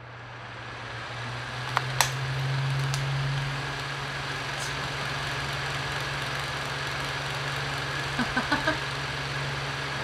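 Cheap electric pedestal fan switched on at its third speed, spinning up over the first few seconds to a loud, steady hum and whir. Two sharp clicks sound about two seconds in. Its owner finds the fan very loud, too noisy to sleep by.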